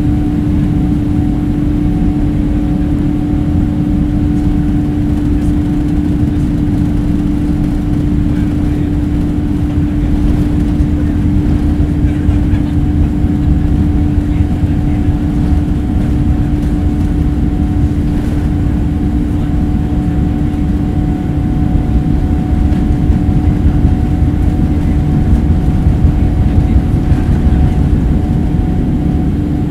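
Cabin noise of a Boeing 787-8 moving on the ground, heard from a window seat beside its Rolls-Royce Trent 1000 engine. A steady low rumble carries a constant hum and swells slightly about two-thirds of the way through.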